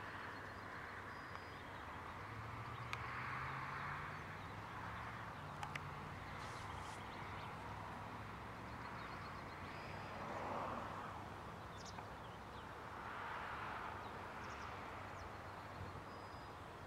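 Open-country ambience: a steady rush of wind that swells every few seconds, with faint bird chirps and, from about two to six seconds in, the low hum of a distant engine.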